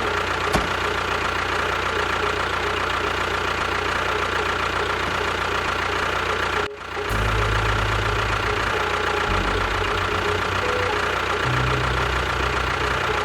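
A motor running steadily with a constant whine. It breaks off briefly about seven seconds in, and then returns with a heavier low chugging.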